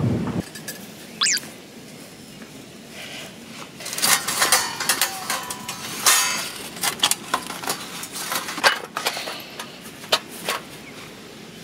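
Metal plates and rods of a compact en.solo fire pit being handled and fitted together with gloved hands. From about four seconds in there is a run of clinks, scrapes and light clanks of thin metal.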